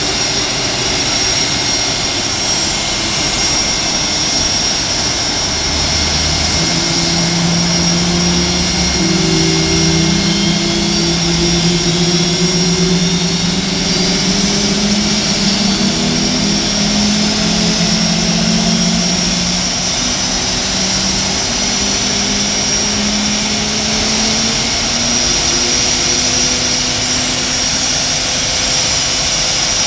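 Blue Angels F/A-18 Hornet jet engines running at idle before takeoff: a steady, loud roar with a constant high-pitched whine. Lower engine tones shift and slide in pitch through the middle stretch.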